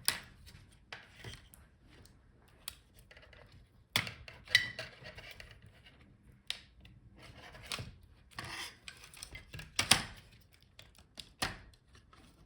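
Dell XPS 13 7390 heatsink and fan assembly being worked free and lifted off the motherboard by hand: irregular small clicks, taps and brief scrapes of metal parts, two sharper knocks about four and a half and ten seconds in.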